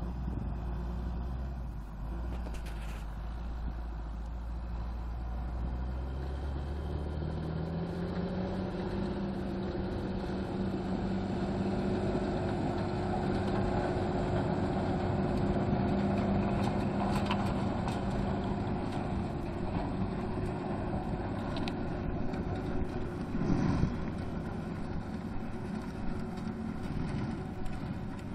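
Green John Deere tractor pulling a Maschio Gaspardo Gemella flail mulcher through corn stubble: the engine runs under load with the mulcher's rotors whirring and chopping stalks. A low hum rises in pitch about seven seconds in, and the sound grows louder toward the middle as it passes close, then fades as it moves away. A brief sharp knock comes about two-thirds through.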